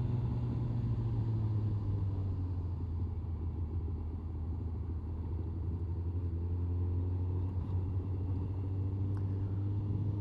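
Honda CBR1100XX Blackbird's inline-four engine running at a steady cruise, heard from inside the rider's helmet, with a steady low engine note that shifts only slightly in pitch over road and wind noise.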